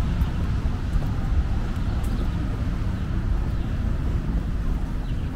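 Steady low rumble of city street ambience: traffic with wind buffeting the microphone.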